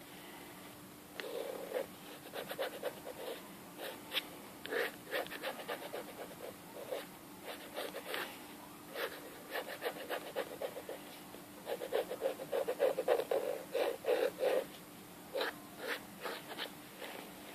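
Drawing on paper: quick scratchy strokes of a drawing tool in irregular runs, busiest about twelve to fifteen seconds in.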